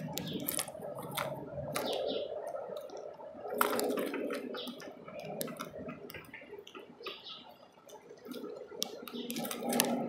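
Birds pecking and scrabbling on a bird feeder close to the microphone: irregular sharp taps and clicks, the loudest a little under four seconds in and just before the end, over a low muffled rustle.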